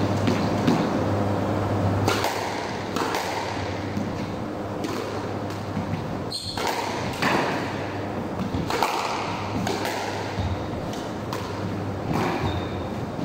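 Squash rally: the ball cracking off the rackets and slapping against the court walls every second or two, each hit ringing briefly in the enclosed court, with a couple of short squeaks from shoes on the wooden floor.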